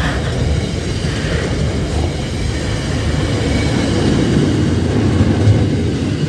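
Freight train passing close by: a loud, steady rumble of wagon wheels on the rails.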